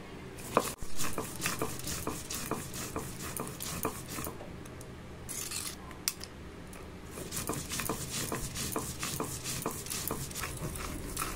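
Stone roller of a sil-nora grinding stone rolled and scraped over the rough stone slab, grinding mustard seeds, poppy seeds and chillies into a paste, with the loose seeds then pushed together by hand on the stone. A busy run of irregular gritty scrapes and clicks.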